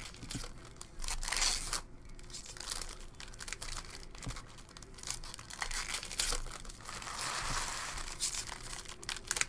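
Foil wrapper of a hockey trading-card pack being torn open and crinkled by hand, with a louder tear about a second in.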